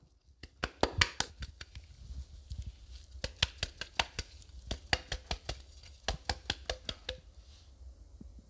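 A white ceramic plate knocked and jiggled lightly against a wooden worktop to spread a pool of pear sauce across it, giving sharp clicks several a second in short runs, some with a brief ring. The clicks stop about a second before the end.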